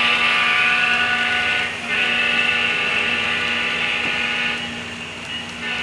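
Sound-equipped HO-scale model diesel locomotive blowing its horn in long blasts, with a short break just before two seconds in. The horn fades at about four and a half seconds and returns in short sounds near the end, over a steady hum from the running train.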